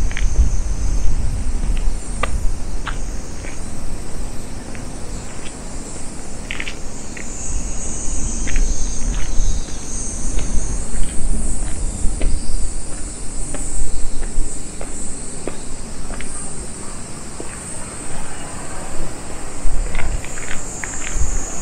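Insects chirping in a steady high chorus, with scattered light clicks and a low rumble underneath.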